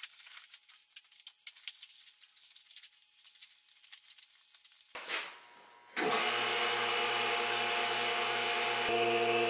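Plastic vacuum-bag sheeting crinkling as it is handled and smoothed, then about six seconds in a vacuum pump switches on and runs steadily with a hum and a hiss, evacuating the bag over the epoxy-coated board.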